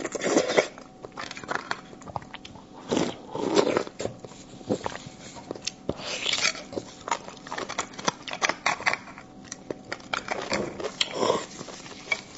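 Close-up eating sounds of a person sucking and chewing braised beef bone marrow: several louder wet slurps as marrow is drawn out of the cut bone ends, between many small wet mouth clicks.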